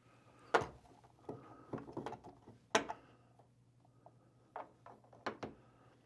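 Scattered light clicks and knocks of a plastic condensate pump housing being handled and pressed into place against a wooden backboard under a mini-split head unit. Two knocks stand out, about half a second in and near the three-second mark.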